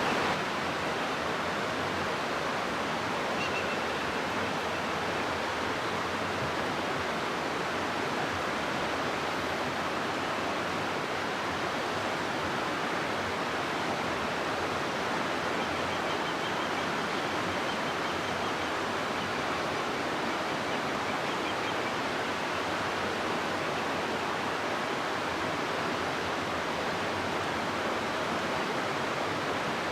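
River water rushing through a gorge, a steady, even hiss of flowing water.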